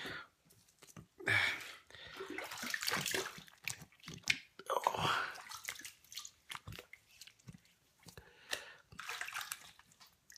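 Water splashed onto the face by hand to rinse off shaving cream after a razor shave: a run of irregular splashes and drips.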